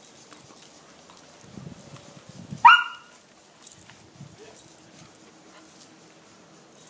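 A puppy gives one short, high yelp about two and a half seconds in, with soft rustling before it.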